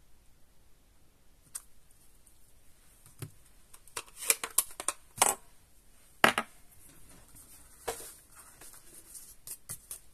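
Scattered light clicks and taps of desk crafting, with the hard plastic lid of a Stampin' Up ink pad being closed and the card-stock panel handled. The loudest clicks come in a cluster about four to six seconds in, with a few more later.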